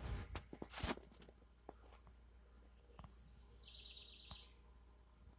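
A cluster of clicks and knocks in the first second, then a songbird calling at dawn: a short high note about three seconds in, followed by a quick trilled phrase.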